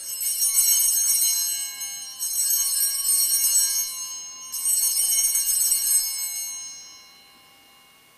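Altar bells (Sanctus bells) rung three times, each a shaken cluster of high bells that rings on and dies away, the last fading out near the end. They mark the elevation of the host at the consecration.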